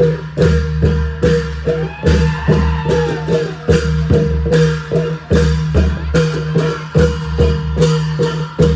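Thai long drums (klong yao) playing an old-style rhythm in a steady, even beat of about two to three accented strokes a second, with bright metallic strikes on the beats. A brief sliding tone rises and falls over the drumming about two seconds in.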